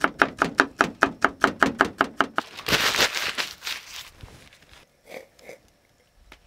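A knife chopping rapidly on a wooden board, about six quick strokes a second, mincing a garlic clove. The chopping stops about two and a half seconds in, followed by a second-long rasping rush of noise and a couple of soft knocks.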